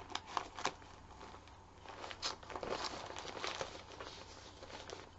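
Plastic wrapping rustling and crinkling as hands dig for and pull out a stitching project, with scattered light clicks and taps.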